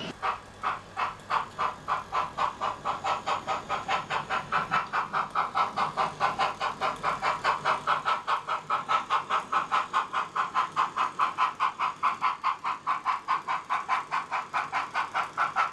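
Sound-fitted OO gauge model BR Standard 9F steam locomotive's exhaust chuffs from its onboard speaker, quickening over the first few seconds and then holding a steady beat of about four chuffs a second as the loco pulls its train.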